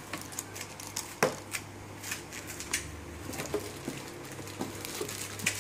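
Scattered light knocks and rustles of a cardboard box and its packaging being handled and rummaged through, with one sharper knock about a second in.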